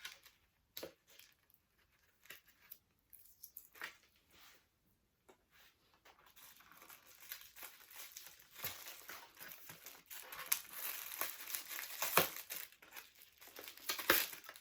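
Paper packaging being unwrapped by hand: a few light rustles and clicks, then steadier crinkling and tearing from about six seconds in.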